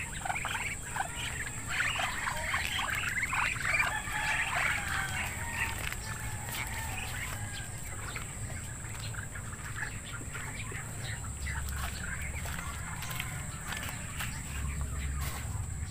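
Young Muscovy ducks peeping in a busy flurry of short, high calls for the first five seconds or so, then only a few scattered, fainter peeps.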